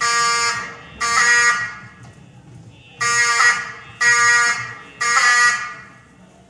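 Wheelock 7002T-24 fire alarm horn sounding the temporal-three evacuation pattern: harsh buzzing horn blasts about a second apart in groups of three, separated by a longer pause. Each blast starts abruptly and fades away over most of a second. Two blasts close out one group, then a full group of three follows.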